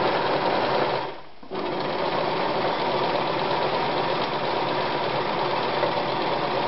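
Anker Super Stretch 220 electric sewing machine running steadily while sewing a stretch straight stitch on a fabric sample. It stops for about half a second about a second in, then runs on.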